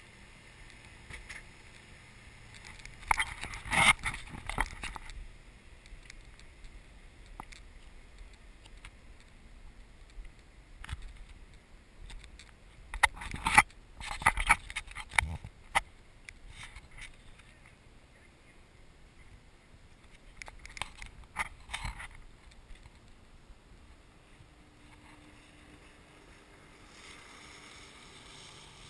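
Quiet open-air background broken three times by clusters of crackling and clicking, the loudest about 4 and 14 seconds in. Near the end a faint steady engine hum comes in from a small fast watercraft crossing in the distance.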